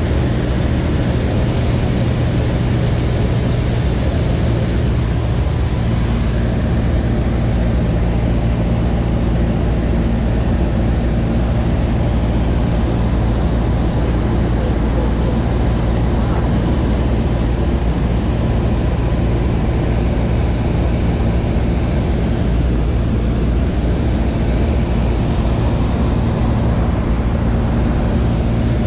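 Light aircraft's engine and propeller heard from inside the cabin in cruise: a loud, steady low drone with airflow noise over it.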